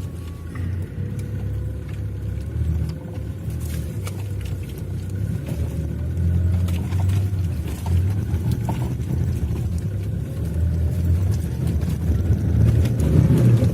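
Toyota Land Cruiser 120's D-4D turbodiesel engine working hard off-road, a low rumble that rises and falls and grows louder near the end, with scattered knocks. The occupants take it that too much throttle here made the wheels skid.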